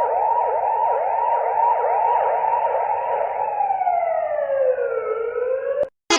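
Electronic emergency-vehicle siren in a fast yelp, its pitch sweeping up and down about three times a second. It then slides down into one slow low wail and cuts off suddenly near the end.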